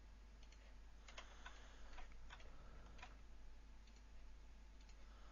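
Faint, irregular clicks of a computer mouse being used to select edges, with a quick run of them between about one and three seconds in, over a low steady hum.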